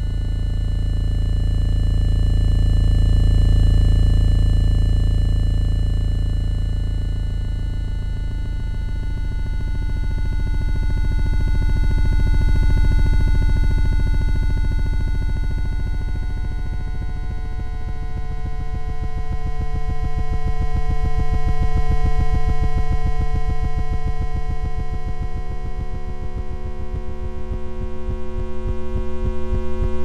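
Synthesized electronic drone of many stacked steady sine-like tones over a deep, fast-pulsing throb, swelling and fading about every nine seconds. The pulsing grows more distinct in the second half, and the layered tones change just at the end. The rhythm and pitches are tuned to the mean lifetimes of the charged muon and the charged pion.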